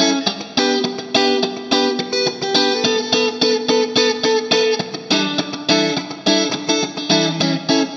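PRS Silver Sky electric guitar played through a miked Marshall Silver Jubilee amp and 4x12 cabinet: rhythmic picked chords at about four or five strokes a second, with some notes held for a couple of seconds in the middle.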